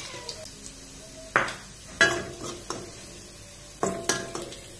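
Garlic frying in oil in a wok, a soft sizzle, with a metal utensil knocking against the wok about five times, each knock ringing briefly.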